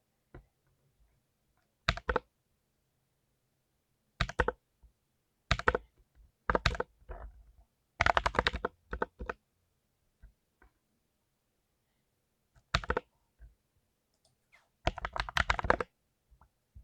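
Typing on a full-size mechanical keyboard with clicky blue switches: short runs of rapid, sharp key clicks come in separate bursts, with pauses of a second or more between them.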